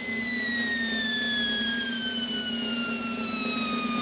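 A stage sound effect: a long whistle-like tone falling slowly and steadily in pitch over a steady low hum and hiss. It builds suspense before a bump.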